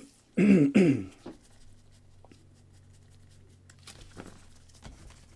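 A man's brief two-part vocal sound, falling in pitch, about half a second in. After it come faint light clicks and rustles of a stack of trading cards being thumbed through in gloved hands.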